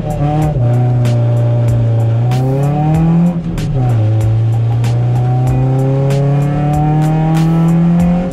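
Renault Clio 172's 2.0-litre four-cylinder engine pulling hard under full throttle, heard from inside the cabin. The engine pitch climbs steadily through each gear and drops sharply at two upshifts, one about half a second in and one a little before four seconds.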